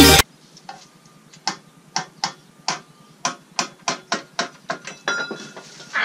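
A run of sharp, separate clicks, about three a second, from hand tools working on the flywheel end of an engine. Background electronic music cuts off just at the start.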